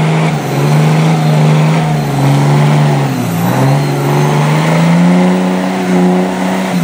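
Lifted Ram diesel pickup on tall mud tires, its engine running hard at high revs as it ploughs through deep muddy water, with water and mud splashing. The revs drop briefly about three seconds in, then climb again.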